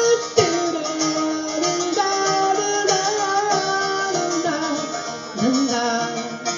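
Live song on acoustic guitar with a held sung vocal line, playing through the song's closing bars.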